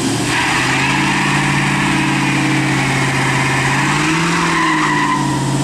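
1966 Mustang GT-350's V8 held at high revs in a burnout attempt, its rear tyres spinning and squealing against the road. The revs stay steady, then rise and fall briefly about four seconds in.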